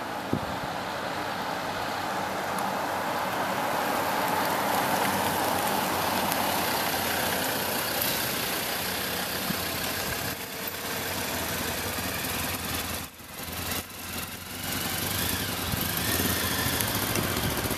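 Street traffic with motorcycle engines running as bikes ride past, one about midway and another near the end. The second bike's engine rises in pitch as it passes.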